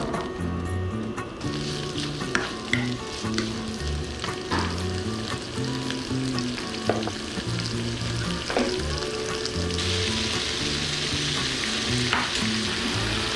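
Food frying in a hot pan, a steady sizzle that starts about a second and a half in and grows louder near the end, with a few clicks of a utensil stirring against the pan. Background music runs underneath.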